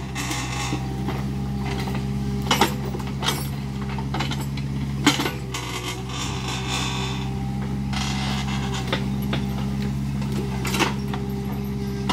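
Kubota mini excavator's diesel engine running steadily while the machine works, with several sharp knocks and clanks and a few stretches of hissing noise.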